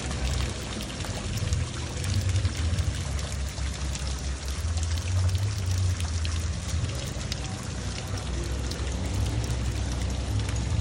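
Tiered ornamental fountain, its water falling steadily from the upper basin into the pool below in a continuous splashing, over a steady low rumble.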